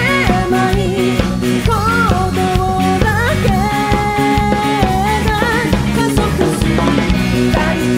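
Live rock band playing an instrumental passage: drums and bass keep a steady beat under a lead melody that slides up and down between long held notes.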